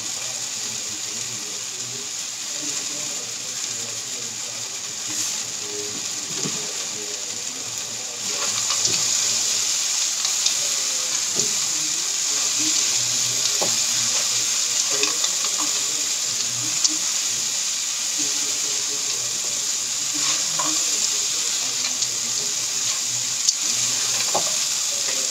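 Diced tempe and roasted peanuts sizzling in sambal in a wok while a spatula stirs and scrapes through them, with small clicks of the spatula against the pan. The sizzle grows louder about eight seconds in.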